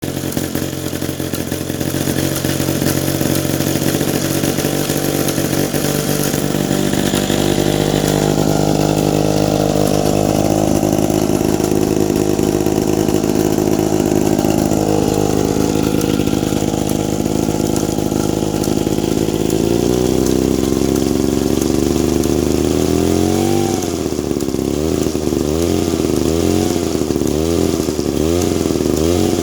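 Vintage Mall 11 two-man chainsaw engine running at a steady speed. About two-thirds of the way through it speeds up, then revs up and down over and over, about once a second.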